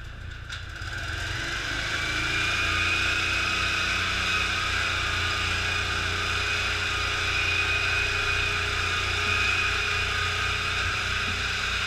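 Portable positive-pressure ventilation fan running, blowing air into a burning room. It grows louder over the first two seconds, then runs steadily with a constant high whine and an even low throb.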